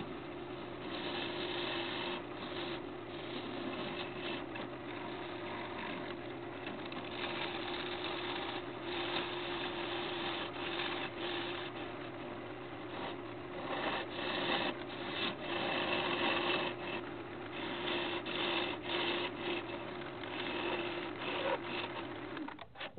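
Wood lathe running with a steady hum while a gouge hollows a spinning apple wood blank, a scratchy hiss of cutting that swells and fades as the tool is pushed in. It cuts off suddenly near the end.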